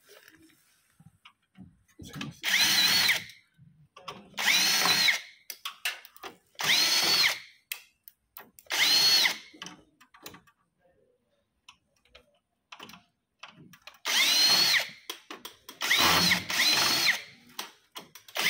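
A ZHDX 298VF cordless drill/driver running in six short bursts of about a second each. Its motor whine rises and falls with each trigger pull as it takes out screws from a copier's sheet-metal frame. Small clicks of handling come between the bursts.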